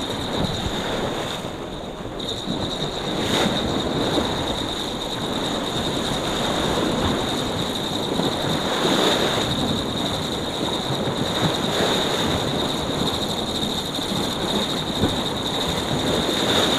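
Choppy sea washing and breaking against shore rocks, with wind on the microphone: a steady rushing noise that swells and eases every few seconds. A thin, steady high tone runs through it.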